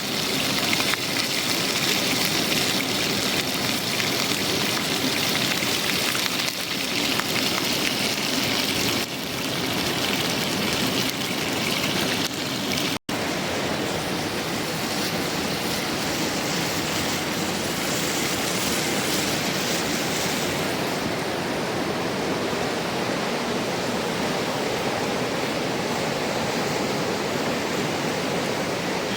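A mountain river rushing, a steady hiss of flowing water. It cuts out for an instant about 13 seconds in, and its highest hiss thins in the last third.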